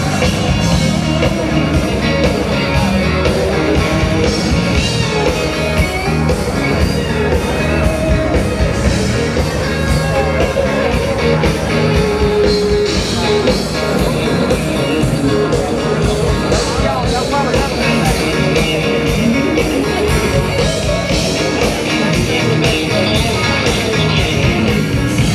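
Live rock and roll band playing: guitar and vocals over a steady beat.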